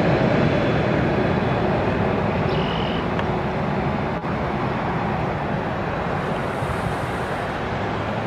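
Jet engines of a taxiing Airbus A380-861 (Engine Alliance GP7200s) running at low power. It is a steady jet rush that eases slightly as the airliner rolls away.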